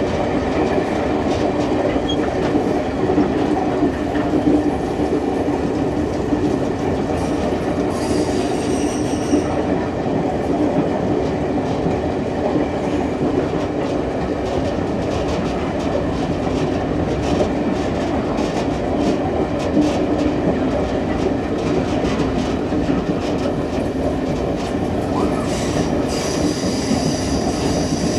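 Passenger train rolling along the track, heard from the rear of the train: a steady rumble of wheels on rail. High-pitched wheel squeal comes in briefly about eight seconds in and again near the end.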